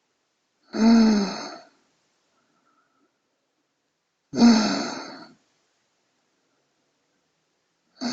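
A person snoring in their sleep: two long rasping snores about three and a half seconds apart, each with a pitch that dips slightly, and a third beginning at the very end.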